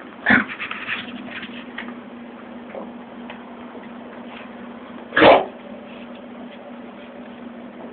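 A pug coughing: two short, harsh coughs about five seconds apart. The owner asks whether this is kennel cough.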